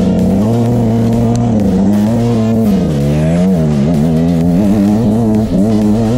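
Dirt bike engine running under throttle while riding over rough grass, its revs rising and falling, with a drop in revs about three seconds in before it picks up again.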